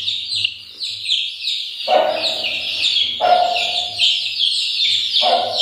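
Young Aseel chicks peeping without a break: a dense run of short, high, falling cheeps, many per second. Three brief lower-pitched calls or sounds break in about two, three and five seconds in.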